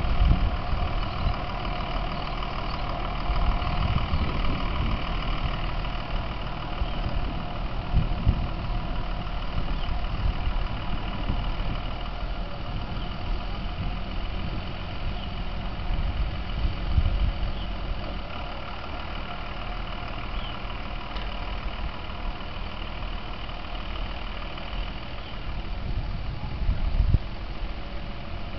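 Engine of a vintage Brill railcar running steadily as the car backs slowly along the track, growing a little quieter in the second half as it draws away.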